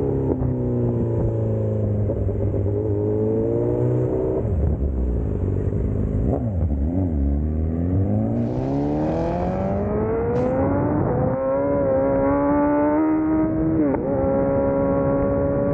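Motorcycle engine on the road, its pitch falling as it slows for about the first seven seconds, then climbing as it accelerates again. Near the end it holds a steadier note, with a short dip about fourteen seconds in.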